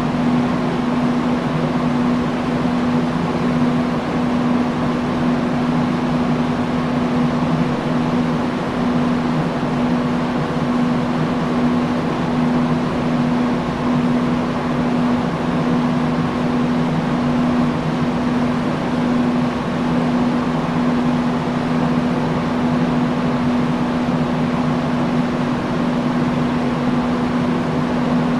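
Industrial fan running steadily: an even rush of moving air with a constant low motor hum.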